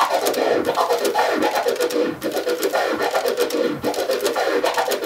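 Vinyl record scratched on a turntable in a four-click orbit (4Lo-HiC orbit). The crossfader clicks cut the sample into rapid repeating groups of five sounds, the first four short and the last one longer, on each forward and back stroke of the record.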